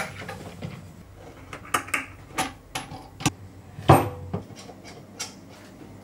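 Irregular clicks, knocks and light metallic clatter of a microphone boom arm being handled and clamped to a desk. The loudest knock comes about four seconds in.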